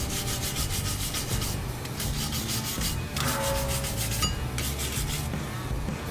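Steel wire brush scrubbed rapidly back and forth over the rusty wheel hub centre around the axle nut, in four quick bouts with short pauses between them.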